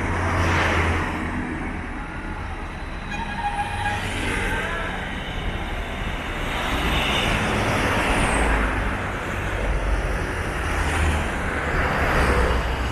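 Bus engine running with road and traffic noise around it, swelling and easing a few times.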